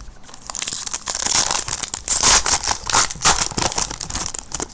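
Plastic trading-card pack wrapper crinkling and tearing as it is opened, a dense run of crackles.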